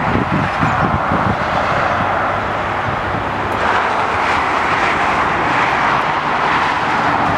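Steady rush of fast freeway traffic, cars passing one after another, swelling about four seconds in as a vehicle goes by.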